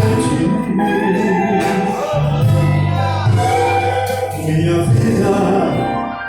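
Gospel praise song in Portuguese: a man singing held, gliding notes over steady instrumental accompaniment.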